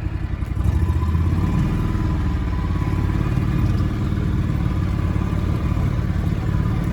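A vehicle engine running steadily with a low, rhythmic rumble, getting louder a little under a second in as it picks up.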